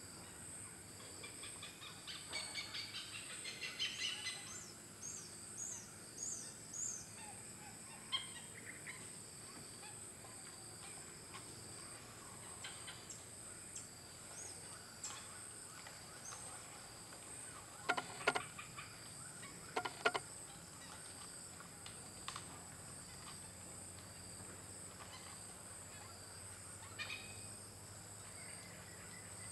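Birds calling over a steady high insect drone: rapid chirping notes in the first few seconds, then two short, loud clusters of harsh calls about 18 and 20 seconds in, from oriental pied hornbills.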